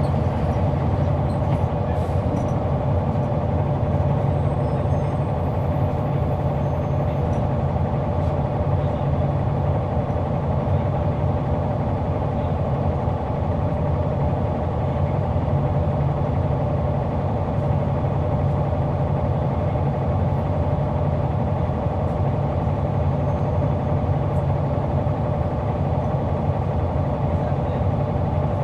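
Caterpillar C9 ACERT diesel engine of a 2004 Neoplan AN459 articulated bus, heard from on board, running steadily at one even pitch.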